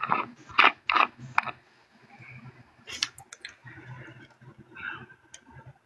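A handful of sharp clicks and knocks at irregular intervals, over a faint low hum.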